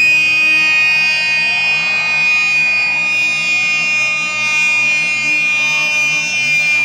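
Electronic music played loud over a DJ sound system: a held high synth tone over a fast, repeating low pulse.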